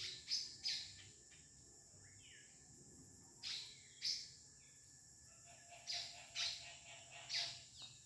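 Small birds chirping: about eight short, high calls at irregular intervals, some sliding down in pitch, over a quiet background.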